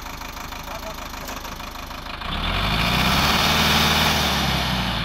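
Sonalika DI-60 RX tractor's diesel engine running steadily, then revved up about two seconds in, getting much louder with a rushing noise before easing slightly near the end.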